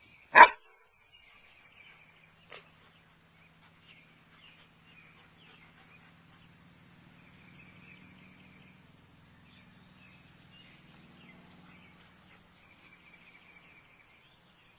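A dog barks once, a single sharp bark just after the start, followed by faint high chirping in the background.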